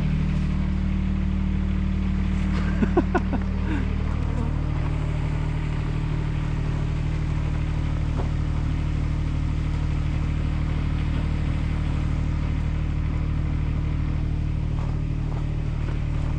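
An engine running steadily at idle, a constant low hum. About three seconds in, a few short, sharp sounds with rising pitch stand out briefly above it.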